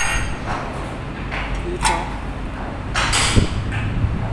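Flat steel strip and bending tools knocking and scraping on a steel work table, several separate metal clanks, over a steady low hum.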